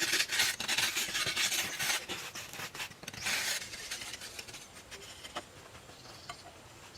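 Rasping, scraping noise, strongest in the first two seconds, with a second burst about three seconds in, then dying away to faint ticks.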